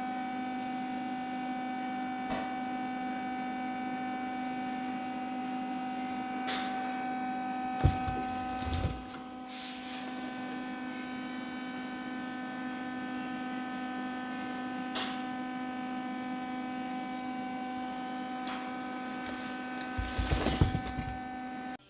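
A steady hum made of several constant tones, with a sharp knock and some low thumps about eight seconds in and again near the end.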